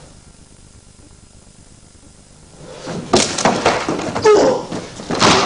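Quiet at first, then from about halfway through, free sparring: irregular thuds and scuffs of bodies and feet on a training mat, with short grunts mixed in.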